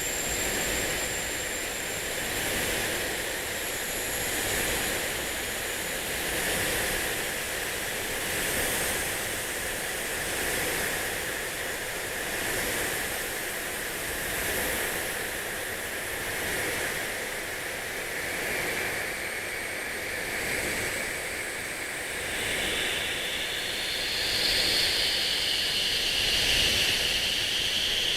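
Rushing sound-therapy noise bed that swells and fades about every two seconds, like surf. Faint high ringing tones die away in the first couple of seconds, and a brighter, higher hiss comes in about twenty seconds in.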